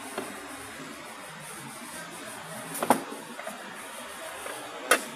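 Metal lid clanking down onto a wok over a charcoal brazier. There are two sharp clinks, the louder one near the end, over a steady background hiss.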